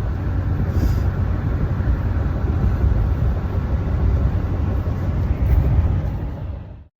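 Steady low rumble of road and engine noise inside a moving vehicle's cab, fading out near the end.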